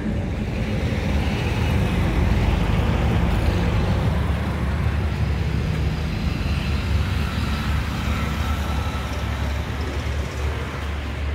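A steady, low engine rumble from a motor vehicle, with road traffic noise.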